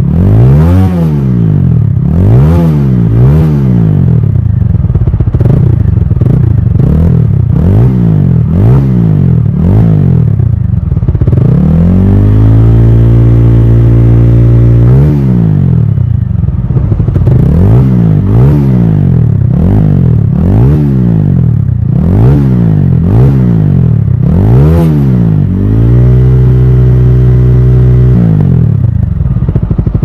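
TVS Apache RTR 200 engine revved through its dual-barrel exhaust: quick throttle blips, about one a second, broken twice by a couple of seconds held at high revs, near the middle and again near the end. The exhaust note is loud, with bass in it.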